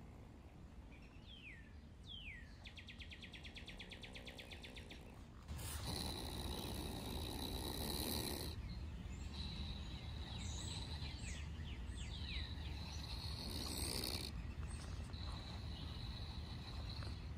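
Opossum hissing in a defensive open-mouthed gape: a long hiss starting about five seconds in and a shorter one later. Birds chirp and a steady insect-like buzz runs behind it.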